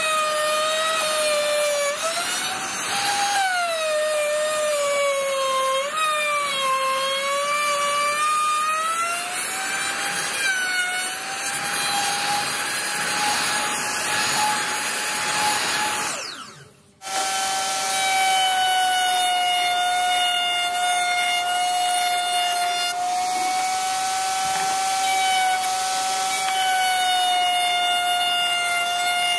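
Electric power tool cutting wood: the motor's whine dips in pitch and recovers again and again as the cut loads it. Near the middle the sound cuts out for a moment, then the motor runs on at a steady pitch.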